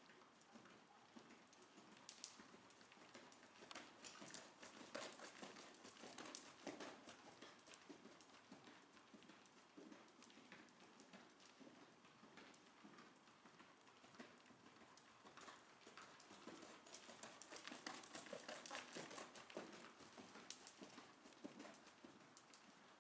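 Faint hoofbeats of a ridden horse cantering on the soft sand footing of an indoor arena, a loose run of muffled thuds that grows louder twice as the horse passes closer.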